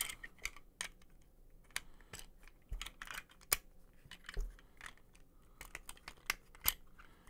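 Vintage LEGO bricks clicking and clattering as they are handled and pressed together onto a wagon base: a light scattering of sharp, irregular clicks.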